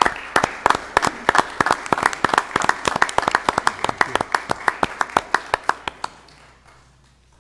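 Audience applauding, sharp claps coming fast over a softer spread of clapping, dying away about six seconds in.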